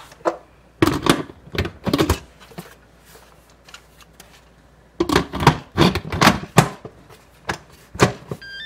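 Stainless pressure-cooker lid being set onto the pot and twisted into place, with two bunches of clattering clicks and knocks of lid against rim. Near the end the cooker gives a short rising run of electronic beeps as the lid is locked.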